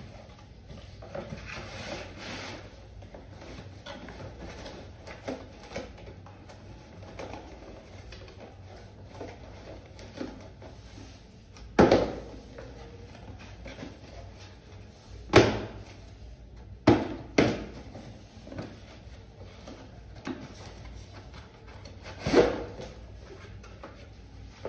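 Cardboard mug boxes and moulded pulp-paper inserts being handled and folded, with about five sharp knocks of a box being set down or tapped on a tiled floor.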